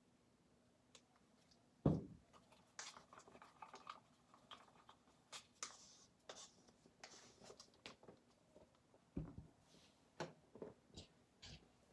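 A wooden craft stick stirring and scraping paint mixed with glue in a plastic cup, with small scratchy strokes and clicks against the cup. A few knocks, the loudest about two seconds in and another about nine seconds in.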